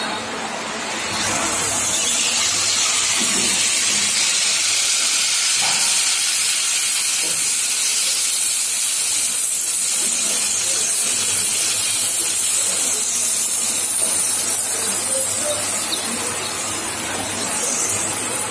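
Steady hiss of steam escaping from the closed, heated baking moulds of an ice cream cone baking machine as the cones bake. It swells about a second in, over a faint low hum.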